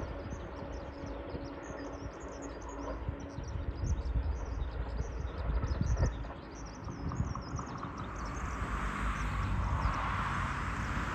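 Small birds chirping over a low outdoor rumble. From about eight seconds in, a broad rushing hiss swells up and covers the chirps.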